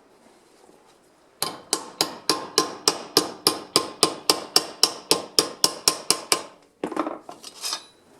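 About twenty sharp, evenly spaced metallic clicks or taps, about four a second, each with a brief ring, starting about a second and a half in; they stop, then a short irregular clatter follows near the end.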